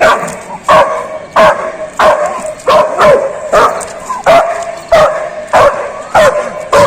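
A dog barking loudly and repeatedly, about a dozen barks in a steady rhythm, a little under two a second.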